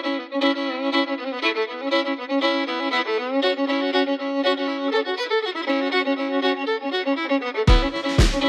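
Background music led by fiddle, with a steady drum beat entering near the end.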